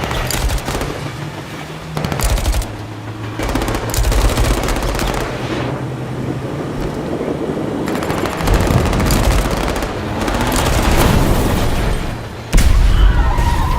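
Train crash sound effect: rapid, dense clattering and crashing metal impacts over a low rumble, with a sudden, loudest crash about twelve and a half seconds in.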